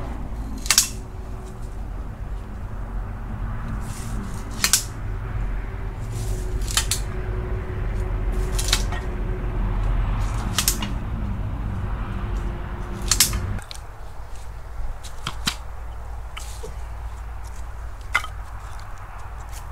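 Sharp, crisp clicks or snaps every couple of seconds over a steady low rumble; the rumble drops away suddenly about two-thirds of the way through.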